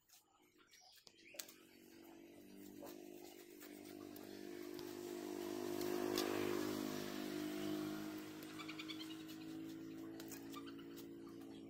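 A motor vehicle's engine passing: a steady hum that grows louder to a peak about six seconds in, then slowly fades.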